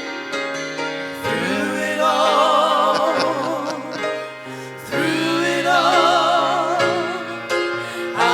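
Gospel music: voices holding long sung notes with vibrato over keyboard accompaniment, in two long phrases.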